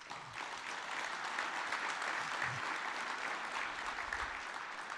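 Audience applauding, building up in the first half second and tapering off near the end.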